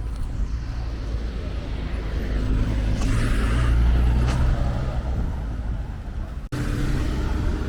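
Road traffic with a motor vehicle's engine growing louder to a peak about three to four seconds in and then easing off, over a steady low rumble. The sound cuts out for an instant near the end.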